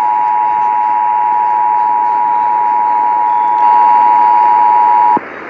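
Emergency Alert System attention signal received over the radio: the steady two-tone alert (853 and 960 Hz together). It gets slightly louder about three and a half seconds in, then cuts off suddenly near the end, leaving radio hiss.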